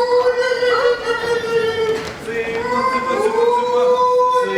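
High voices singing long held notes that slide from one pitch to the next.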